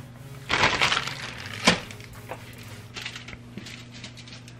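Aluminium foil crinkling and crackling under hands that are arranging steak fries on a fish: a burst of crackling about half a second in, one sharp crack soon after, then lighter rustles.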